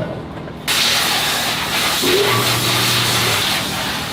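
Steady hiss of a pressurised jet, starting abruptly about a second in and holding for roughly three seconds.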